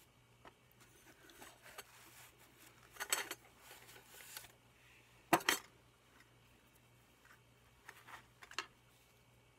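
Tomshoo 750 ml titanium cup and its lid clinking and knocking as they are handled, pulled from a fabric sleeve and set on a wooden table: a few light clinks about three seconds in, the loudest knock a little past halfway, and a few smaller ones near the end, with soft rustling of the sleeve between.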